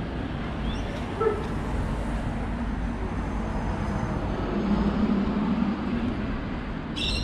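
Steady low rumble of road traffic, swelling briefly a little past the middle, with a short, sharp high-pitched sound near the end.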